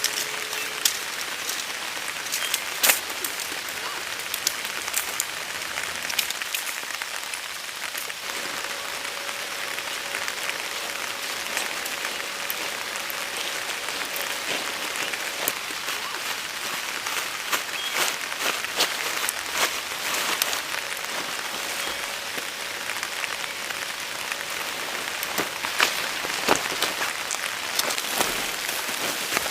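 Steady rain, a continuous hiss with many individual drops ticking sharply close by.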